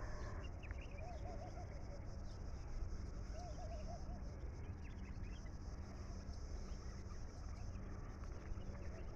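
Birds calling outdoors: a short warbling call of several notes comes about a second in, again a few seconds later and once more near the end, with scattered faint chirps, over a steady low hum.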